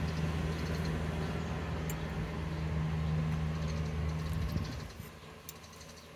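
An engine running steadily at idle, a low hum that drops away about four and a half seconds in. A few faint light clinks of a metal spoon and fork picking through grilled fish.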